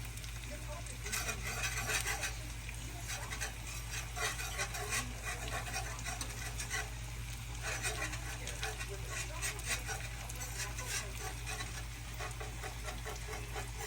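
Wire whisk stirring flour into oil in a pan, a quick, uneven run of scraping and clicking against the pan, over a steady low hum.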